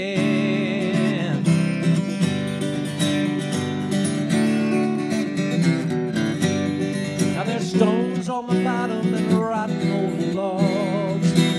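Acoustic guitar strummed steadily in an instrumental break between sung lines, the last sung note held for about the first second.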